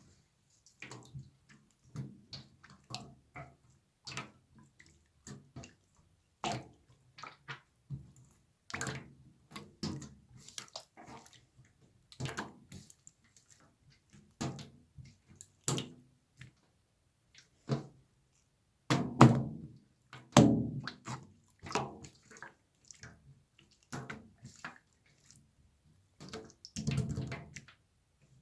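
Slime being pressed and mixed by hand, giving irregular wet squelches and popping clicks, with a few louder squishes in the second half.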